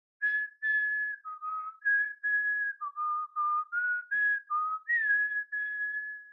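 A tune whistled in clear single notes: about a dozen short notes moving between a few nearby pitches, ending on a long held note that fades out.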